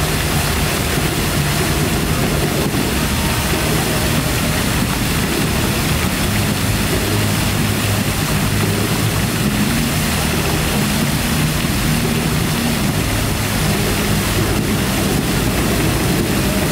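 Fountain water pouring over the rim of a stone basin and splashing into the pool: a steady, even rush. A low engine hum from traffic runs underneath.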